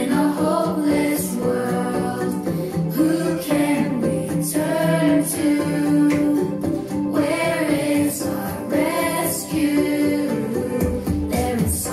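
Christian worship song for a sing-along: young voices, female voices prominent, singing the lyrics over instrumental backing.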